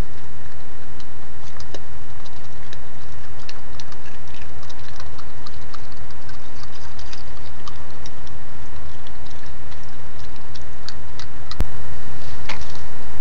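Scattered small clicks and ticks of a raccoon feeding and handling food close to the camera, over a steady low electrical hum with a thin whine. A sharp click comes about eleven and a half seconds in, and a louder one about a second later.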